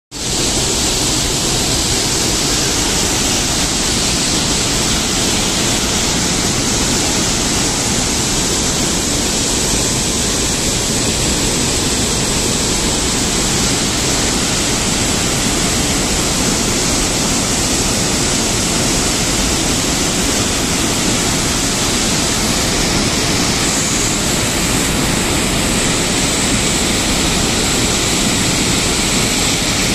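Floodwater gushing out through the open spillway gates of a dam, a loud, steady rush of white water.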